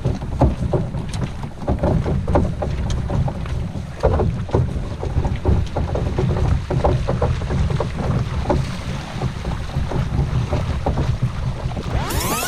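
Wind rumbling on the microphone with many irregular light knocks and clicks, typical of a kayak and its gear on open water. Just before the end, a set of sweeping tones that rise and fall comes in.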